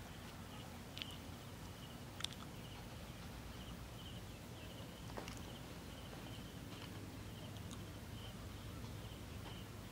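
Faint outdoor ambience: a high chirping repeated several times a second at one pitch, with a few light clicks.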